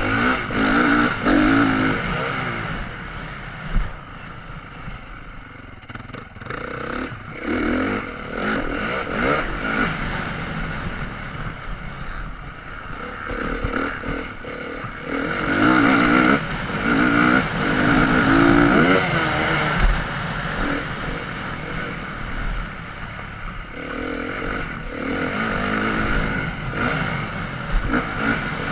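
Motocross dirt bike engine revving up and easing off again and again as the rider works the throttle around a dirt track. A few short knocks are heard among the engine noise.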